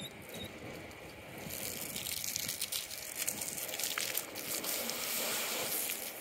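Water jetting from a hose into a plastic bucket of soapy water, splashing and foaming over onto wet pavement; the spray gets louder about a second and a half in.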